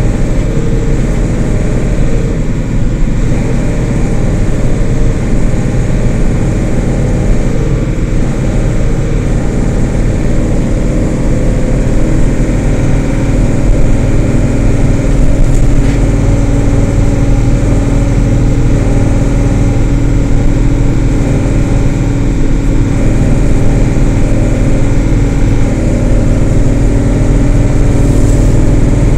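A 2006 Isuzu LT133P bus's diesel engine running: a loud, steady low drone whose tones shift slightly in pitch and grow a little stronger near the end.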